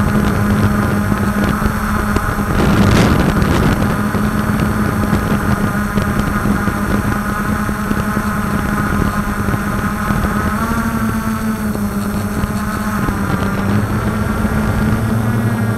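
The brushless motors and propellers of a DJI F450 quadcopter hum steadily in flight, recorded from a camera on the frame. The pitch shifts a little about ten seconds in, and there is a brief rush of wind noise about three seconds in.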